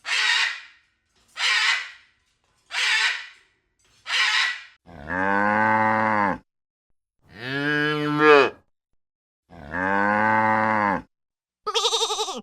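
A cow mooing three times, long low calls each over a second. These are preceded by four short breathy, hissing bursts, and a quavering bleat starts right at the end.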